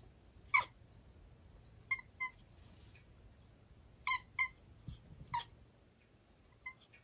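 Domestic cat chirping: about seven short, high chirps, some single and some in quick pairs.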